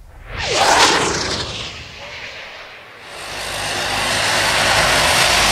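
A brief loud whoosh with a falling tone about half a second in, dying away by two seconds. From about three seconds the de Havilland Canada Dash 8's turboprop engines and propellers run, growing louder and then holding steady.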